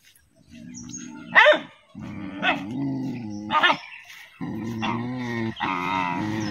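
Young dogs growling at their own reflection in a mirror: low growls broken by three sharp barks in the first four seconds, then one long growl.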